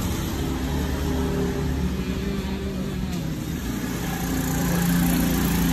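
Road traffic: a steady low hum of vehicle engines, with an engine swelling a little louder about four to five seconds in.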